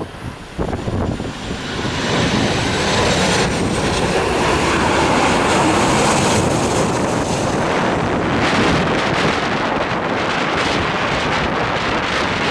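Jet airliner passing low overhead on landing approach: engine noise swells over the first couple of seconds, then stays loud and steady, with a faint high whine early on. Wind buffets the microphone.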